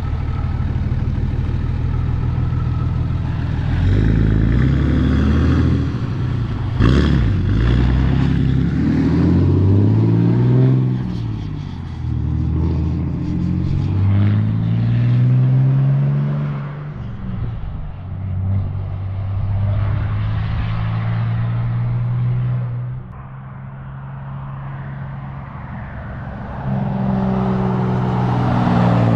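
A 6.7 L Cummins turbo-diesel with an emissions delete and a 4-inch straight-pipe exhaust is accelerating hard through the gears of a manual transmission. The engine note rises and drops back at each shift, about three times, then fades. Near the end it comes back louder as the exhaust brake is used.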